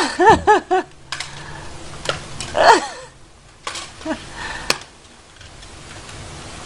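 A high voice gives four quick rising-and-falling cries in the first second, then one falling cry about two and a half seconds in. Between them come a few sharp knocks as a kitten pushes a ceramic vase about and climbs into it.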